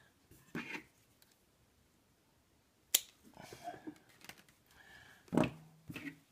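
Hands handling loose stepper-motor wires: soft rustles, a sharp click about three seconds in, and a dull thump near the end.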